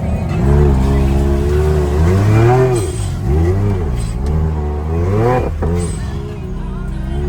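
Side-by-side off-road vehicle engine revving up and easing off again and again, about once a second, as the throttle is worked over rough trail.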